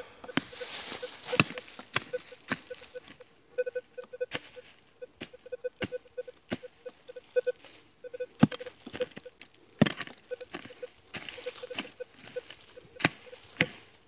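Rutus Alter 71 metal detector giving short, irregular low beeps as it passes over a buried metal target, amid many sharp knocks and scrapes of digging in stony forest ground.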